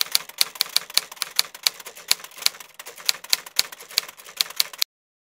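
Typewriter key strikes, a rapid irregular clatter of about four to five clicks a second, typing out a title. They cut off suddenly shortly before the end.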